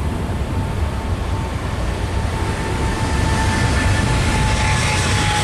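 Boeing 777's turbofan engines running, growing steadily louder, with a thin high whine that drifts slightly lower in pitch over a deep low drone.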